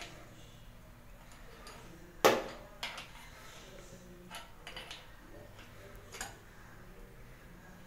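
Small clicks and clinks of a chrome water-pipe valve and an adjustable wrench being handled, with one sharp metal clack about two seconds in, the loudest sound, and a few fainter knocks after it.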